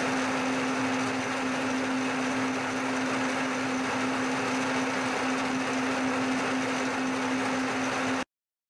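Milling machine spindle running an end mill into a metal bar: a steady motor hum under a constant cutting hiss, which stops abruptly near the end.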